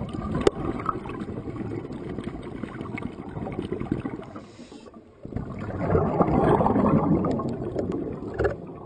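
Water gurgling and bubbling in two long stretches, with a short break about five seconds in and scattered small clicks.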